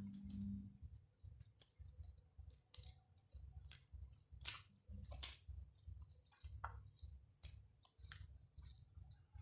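Faint eating sounds close to the microphone: scattered sharp mouth and utensil clicks with chewing, over a low background rumble.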